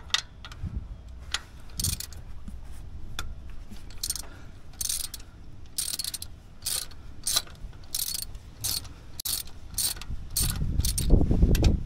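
Ratchet wrench with a 15 mm socket clicking in repeated short strokes, backing out the belt tensioner bolts on a GM Vortec LS-style engine; the strokes come thickest from about four seconds in, at one to two a second. Louder low-pitched rumble and knocks of handling come in near the end.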